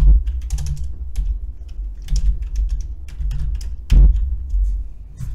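Typing on a computer keyboard: irregular key clicks, with two heavier keystrokes, one at the very start and one about four seconds in.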